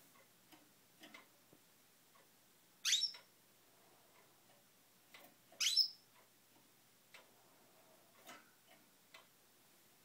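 Caged canary giving two short, sharp chirps that sweep up in pitch, about three seconds apart, with faint scattered ticks between them.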